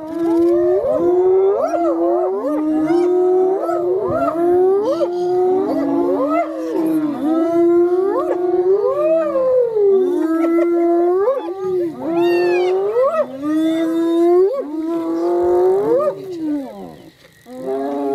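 Several hyenas calling over one another in long, wavering howl-like calls that hold a pitch and then swoop up and down. The calls thin out briefly near the end.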